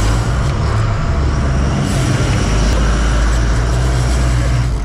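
Steady low drone of the fishing boat's engine with a continuous rushing noise of water along the hull.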